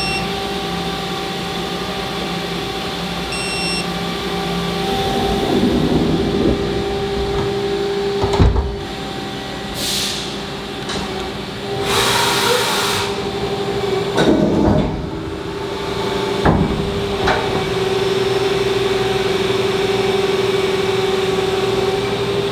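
Makino a81nx horizontal machining center running through a pallet change: a steady machine hum with a sharp knock twice, bursts of air hiss, and a rising-and-falling whine as the pallet moves.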